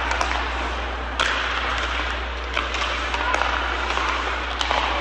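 Ice hockey play: skates scraping on the ice, with several sharp clacks of sticks and puck over a steady low hum.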